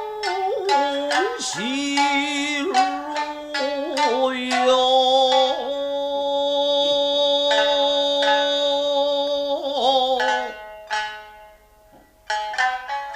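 Nagauta music: shamisen plucking under a long held melodic line that slides between notes. The held line fades out about ten seconds in, there is a brief lull, and quick shamisen plucks start again near the end.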